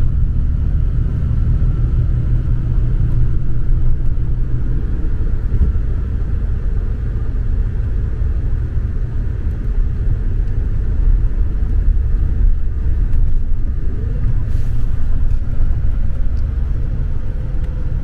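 Steady low rumble of a road vehicle.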